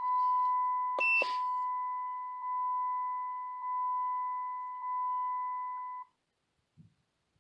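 Car's dashboard warning chime: one steady beep tone that swells again about every second and a quarter, then stops about six seconds in. A click and a brief higher beep come about a second in.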